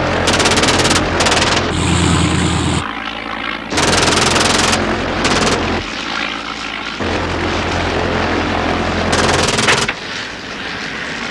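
Propeller engines of First World War fighter aircraft droning in flight, broken by several short bursts of rapid machine-gun fire, one about a second in, others around four and five seconds and a last one near the end.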